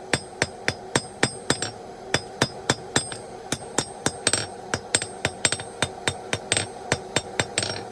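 Hand hammer striking hot steel bar stock on an anvil in steady rhythmic blows, about three to four a second, with the anvil ringing between strikes. The smith is knocking the corners off an octagonal taper to round it up.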